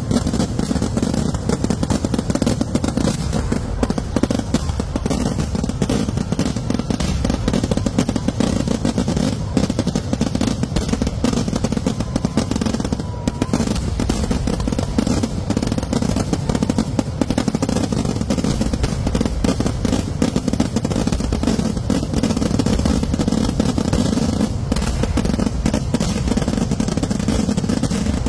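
Kerala festival fireworks going off in a dense, unbroken barrage of firecracker bangs and crackling, one report hard on the next with no pause.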